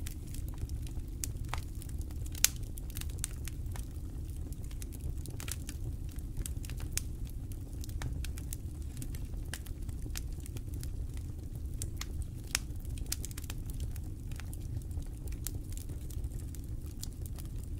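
Wood campfire crackling, with irregular small pops and snaps and a louder sharp pop about two and a half seconds in and another near twelve and a half seconds, over a steady low rumble.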